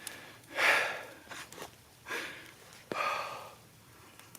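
A man breathing hard with excitement: three heavy breaths close to the microphone, about a second apart, with lighter breaths between.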